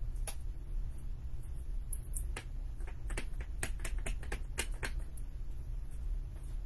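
A dozen or so sharp taps and clicks, thickest from about three to five seconds in: a clear acrylic stamp block being tapped onto a black ink pad to ink a rubber stamp.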